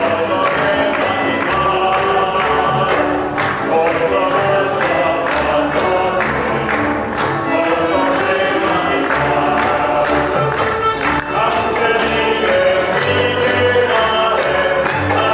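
A group of voices singing to instrumental accompaniment, with a moving bass line and a steady beat.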